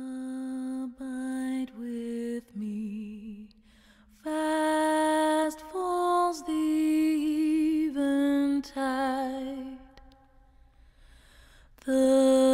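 A single voice singing a slow melody in long held notes with vibrato, phrase by phrase with short breaks. About ten seconds in it goes quiet for a moment, then comes back louder.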